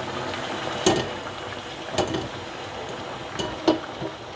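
Pot of fried polao rice with just-boiled water added, giving a steady bubbling hiss. Four sharp metal clinks against the pot: about a second in, at two seconds, and twice around three and a half seconds.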